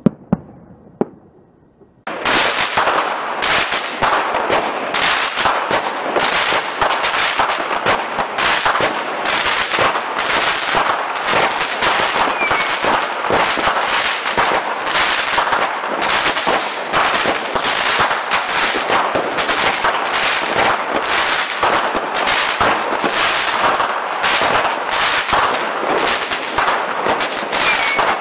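Fireworks going off: a couple of separate bangs, then about two seconds in a dense, rapid barrage of bangs and crackling starts and keeps going without a break.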